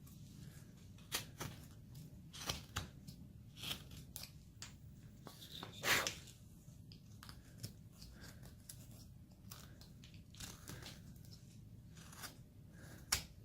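Hand carving blade paring wood: a series of short, irregular slicing cuts, roughly one a second, with a stronger cut about halfway through.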